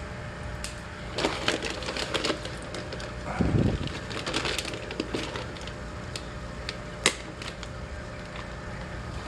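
Plastic fish-shipping bag being handled and opened, crinkling and crackling in irregular bursts, with a brief low rush about three and a half seconds in and one sharp snap about seven seconds in.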